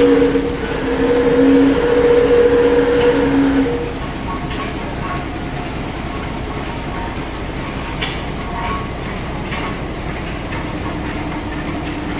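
Stationary steam engines running in an engine shed: a steady mechanical clatter with a regular knock a little more often than once a second. For the first few seconds a loud steady hum sits over it, then cuts off suddenly.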